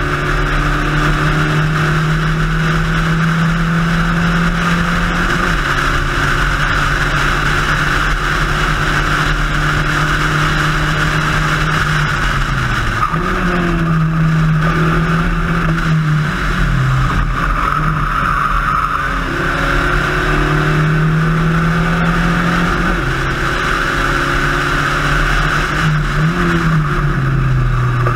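Spec Racer Ford's four-cylinder engine at racing speed heard onboard, holding high revs on the straights and falling in pitch several times as revs drop for corners, then climbing again. Steady wind and road noise runs underneath.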